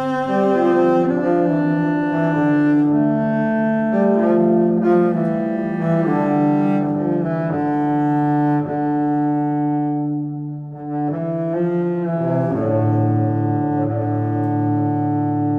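Background music of slow, held low notes, each sustained for a second or two before changing, with a short dip about ten seconds in.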